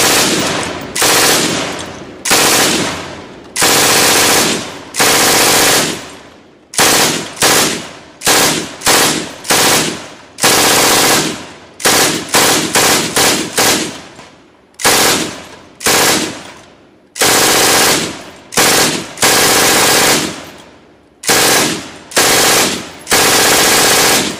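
MG42 machine gun (7.92×57mm Mauser, belt-fed) firing from its bipod in a string of about two dozen bursts, some a fraction of a second and some over a second long. Each burst is a continuous ripping buzz at the gun's very high rate of fire, with echo dying away in the gaps between bursts.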